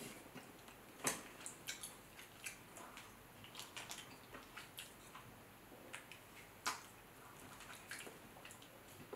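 Boiled, sauce-coated shrimp being peeled by hand: faint wet crackles and clicks of shell coming away, with sharper snaps about a second in and near seven seconds.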